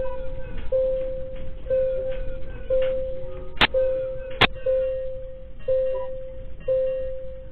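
Earthquake early-warning alarm beeping once a second in a steady mid-pitched tone after its countdown reaches "arrival", signalling that the shaking has reached the site. Two sharp knocks sound a little under a second apart midway through.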